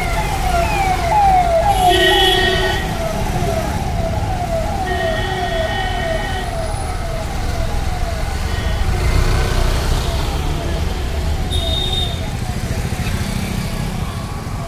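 Emergency vehicle siren passing in traffic, a tone that falls in pitch over and over about twice a second and fades out about two-thirds of the way through. Road traffic runs underneath, and vehicle horns honk several times.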